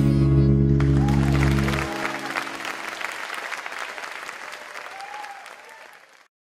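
Audience applause breaking out about a second in as the final held chord of the music dies away after about two seconds; the clapping then fades and cuts off abruptly near the end.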